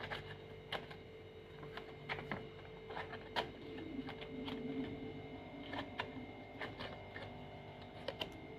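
Faint, irregular light clicks and taps of hands pressing soft dough onto a folded strip of coconut leaf, over a steady low hum.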